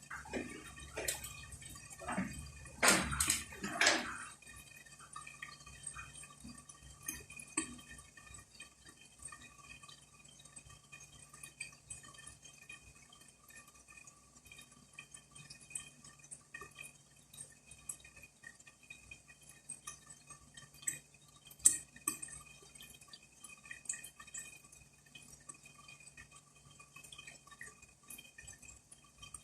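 Kitchen sounds with no speech: a few knocks about two to four seconds in, then faint small drips and light ticks over a steady hum, with one sharp click a little after twenty seconds.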